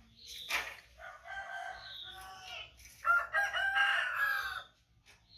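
A rooster crowing twice, the second crow louder and about a second and a half long, after a brief sharp noise near the start.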